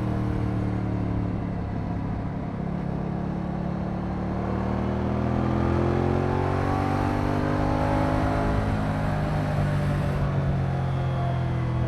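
Moto Guzzi V100 Mandello's V-twin engine running under way. The revs sit low at first, climb from about four seconds in, then ease back down near the end.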